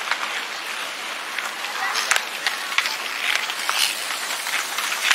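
Children skating: skate wheels rolling with a rattling, ratchet-like noise and scattered sharp clicks and knocks, with children's voices mixed in.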